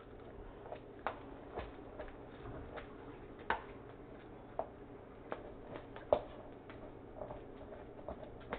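Scattered light clicks and knocks, roughly one a second at uneven spacing, over a low steady hum; two sharper knocks stand out, about three and a half and six seconds in.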